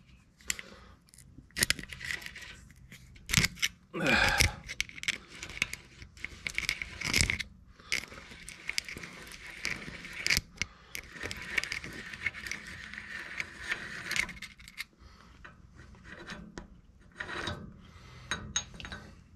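Steel hand tools scraping and clinking on a truck's rear axle nut, with scattered sharp metal knocks, as a screwdriver driven with vice grips works the nut loose. The loudest knocks come about three and a half, four and seven seconds in.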